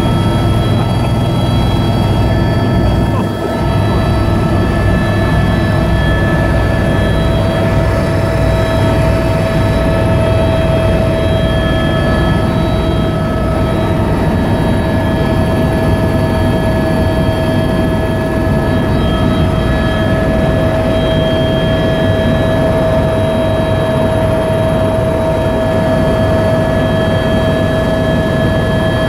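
Helicopter in flight heard from inside the cabin: a loud, steady low beat from the rotor, with several high, steady whine tones from the turbine engine over it.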